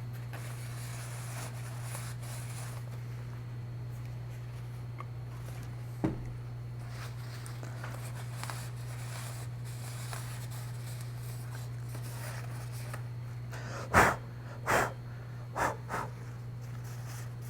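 A steady low hum throughout, with a single light click and then a few sharp knocks about a second apart near the end, as small parts of the light are handled and set down.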